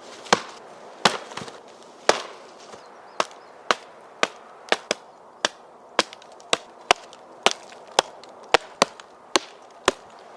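Wood being chopped: about twenty sharp, separate strikes. The first few are heavier with a short rattling tail, and the rest come at roughly two a second.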